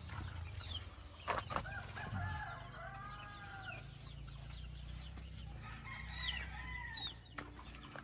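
Young gamefowl chicks peeping in short, high, falling chirps, while a rooster crows once from about two seconds in.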